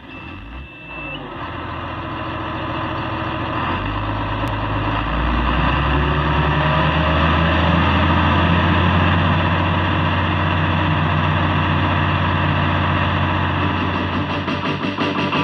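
Heavy farm vehicle's engine running and being throttled up about four seconds in, then held at a steady higher speed. A steady warning beep sounds for about the first second.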